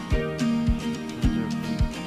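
Background music with a steady beat, about two beats a second, over sustained tones.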